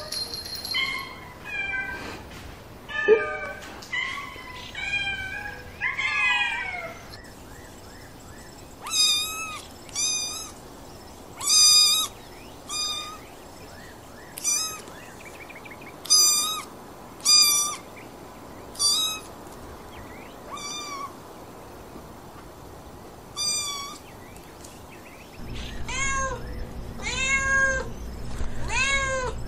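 Kittens mewing over and over, short high-pitched mews one after another with short gaps between. A low steady hum comes in near the end.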